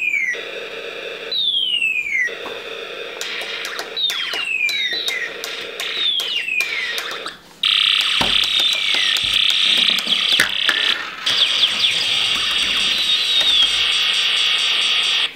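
Snap Circuits Jr. Space War IC sounding through the circuit: repeated falling electronic zaps about every two seconds, then from about eight seconds in a steady, warbling high electronic tone, with a few sharp clicks.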